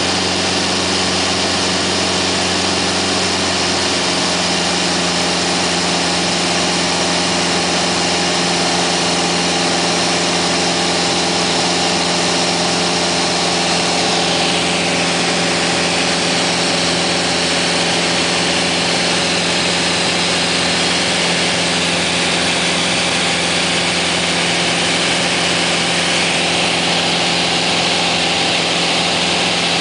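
Pitts Special aerobatic biplane's piston engine and propeller droning steadily overhead, its pitch dipping about halfway through and rising again near the end as it manoeuvres.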